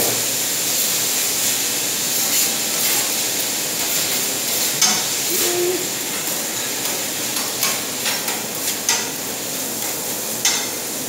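Fried rice sizzling on a steel teppanyaki griddle, with the chef's metal spatulas scraping and clicking against the steel as he stirs and chops the rice. The clicks come more often in the second half.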